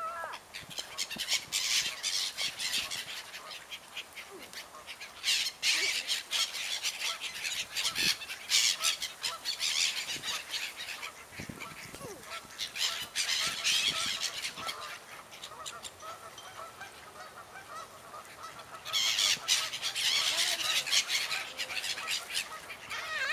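A flock of black-headed gulls on the water calling, with repeated bursts of wing-flapping and splashing as birds take off and land among them.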